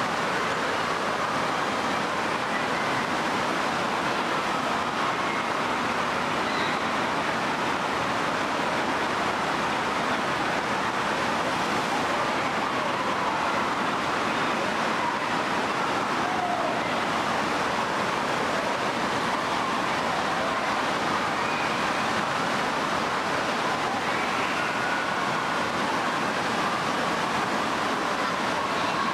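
Steady rushing-water din with faint, indistinct voices, echoing in an indoor water park.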